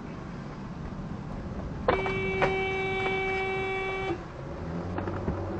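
Car horn sounded in one long steady blast of about two seconds over the running noise of a moving car: a warning at a driver who has entered the roundabout without stopping.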